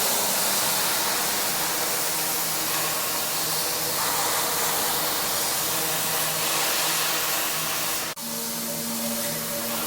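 Pressure washer spraying: a steady, loud hiss of the water jet with a low steady hum underneath, breaking off for an instant about eight seconds in and resuming.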